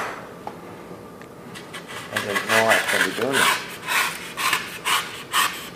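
A knife shaving the corners off a foam fish-body carving blank, in quick rasping strokes about two or three a second that start after a quiet second and a half.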